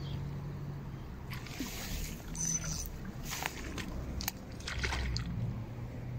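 Water sloshing and splashing as a hooked carp thrashes at the surface close to the bank, with a few scattered short clicks.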